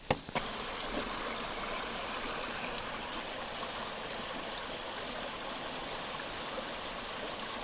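Creek water running steadily around an abandoned camper, with a couple of small clicks in the first half second.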